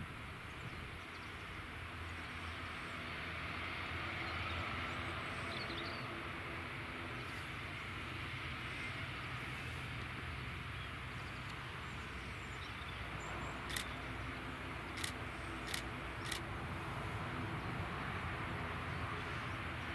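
ATR 72-600 turboprop taxiing at low power: a steady propeller and engine drone with a hiss above it. Four sharp clicks come a little past the middle.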